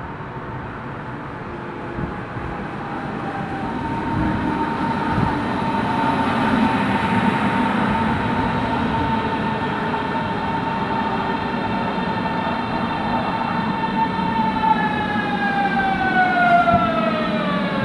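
Berlin S-Bahn class 481 electric multiple unit pulling in and braking: wheel and running-gear rumble under a steady whine from the electric traction motors. Over the last few seconds the whine glides down in pitch as the train slows.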